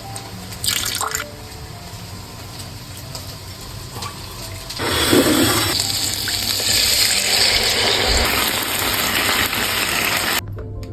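Water running from a kitchen tap, a steady loud rush that starts about five seconds in and cuts off suddenly near the end, after a few seconds of quieter handling sounds.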